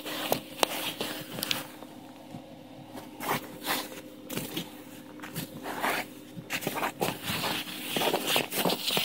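Footsteps crunching in snow and camera handling scrapes, over the steady hum of a Volkswagen Jetta idling shortly after a cold start.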